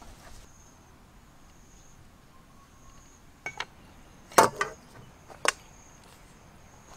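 A few sharp clanks and knocks of a metal wok and cooking utensil being handled, the loudest about four and a half seconds in. Behind them an insect chirps high-pitched, repeating every second or so.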